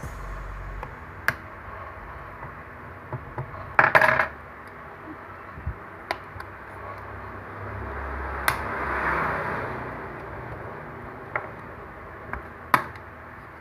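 Small metal tools clicking and tapping against a smartphone's parts during hand disassembly, with a brief louder rattle about four seconds in and a soft scraping stretch around the middle.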